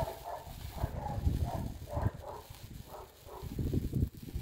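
Wind buffeting the microphone in uneven low gusts, with faint short calls in between.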